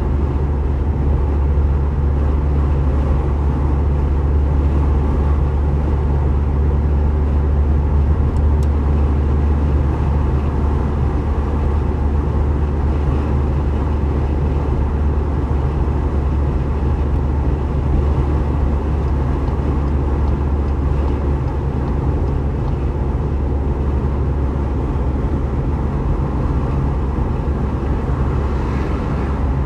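Tuned Seat Leon FR cruising steadily at motorway speed, heard from inside the cabin: an even, low engine drone with tyre and road noise, with no revving or pops.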